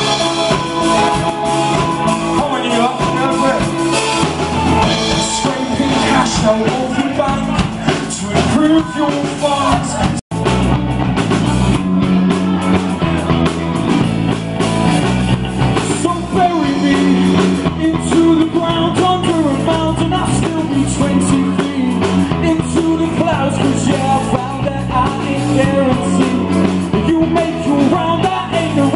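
A live rock band playing with drums, guitar and a singer. The sound cuts out completely for an instant about ten seconds in.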